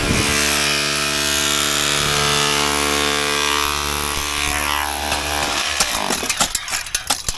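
Electric demolition hammer fitted with a pick bit, chipping concrete. It runs steadily for about five seconds, then stutters in short uneven bursts and stops briefly near the end.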